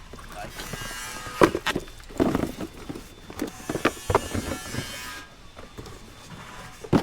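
Irregular knocks and clatter of hard objects being handled and moved about, as discarded electronics such as modems and cords are picked through. The knocks come thickest in the middle, with one more near the end.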